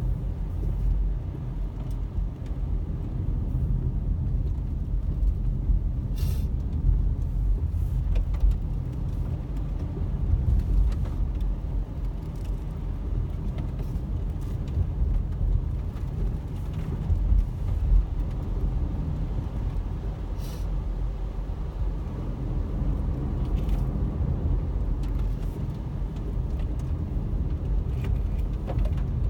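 Steady road noise inside a car driving on a wet road: a low rumble of engine and tyres, with a few short clicks now and then.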